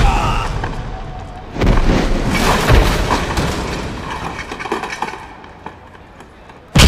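Motorcycles crashing onto stone paving: a sharp impact, then a loud crash of metal clattering and scraping that dies away over a few seconds. A single sharp punch hit comes near the end.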